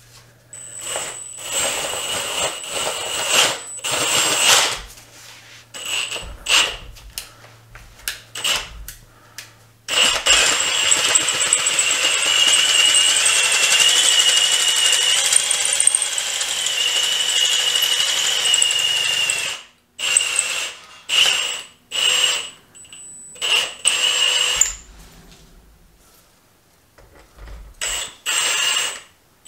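Power drill with a half-inch bit boring out a stripped exhaust manifold bolt hole in an SR20DET's aluminium cylinder head, opening it up to be tapped M14×1.5 for a Keysert insert. The drill runs in short trigger bursts, then a steady run of about ten seconds with a wavering whine, then more short bursts near the end.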